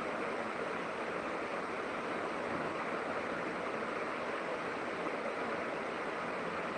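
Steady rushing water, an even unbroken noise with no changes.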